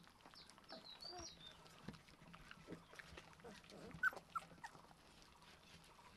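Four-week-old Rottweiler puppies squeaking and whimpering while they feed. A run of short, high squeaks comes in the first second and a half, and a louder squeak about four seconds in, over faint clicks of chewing and licking.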